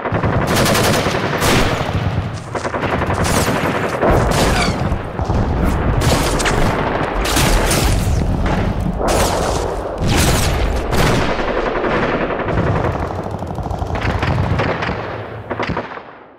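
Video game sound effects: rapid gunfire with repeated loud shots and bursts, fading out near the end.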